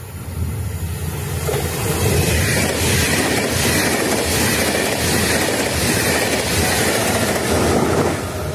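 Double-deck Vivalto regional passenger train passing, its wheels rumbling on the rails. It grows louder over the first two seconds, holds steady as the coaches go by, and drops away near the end.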